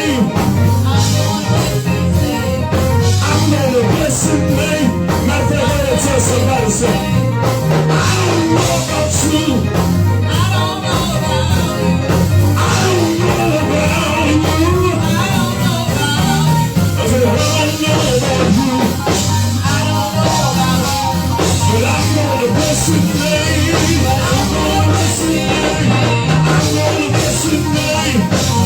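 Live gospel church band playing a praise break: bass line and drums with guitar, and some singing.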